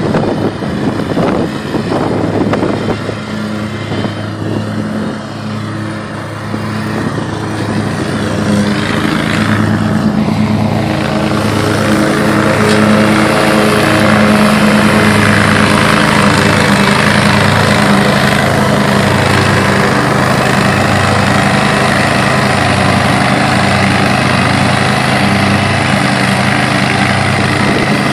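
Hustler Super Z zero-turn mower running, its engine and deck cutting tall dry grass. It gets louder about ten seconds in and stays loud as the mower works close by.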